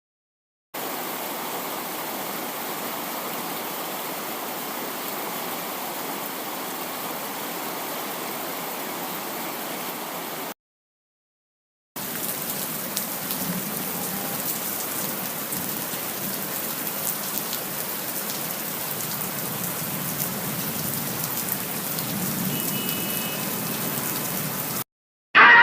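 Steady rain falling, in two separate recordings: the first stops abruptly after about ten seconds, and after a second or so of dead silence the second starts, with finer, crackly patter.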